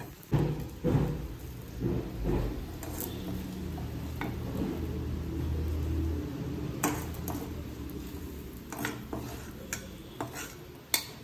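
A steel spoon scraping and clinking against a kadai and a plate as fried mussels are scooped out of the oil, with several sharp clinks, over a low hum in the middle.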